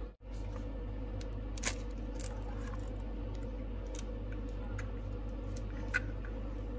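Steady low hum with a few light clicks and taps as an egg is cracked and emptied into a plastic mixing bowl of ground meat, the sharpest click about a second and a half in.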